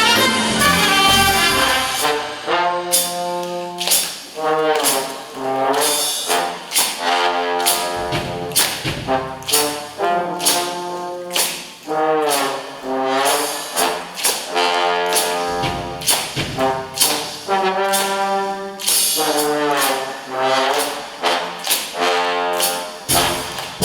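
Brass band playing a jazz blues, the brass section in short rhythmic phrases over percussion.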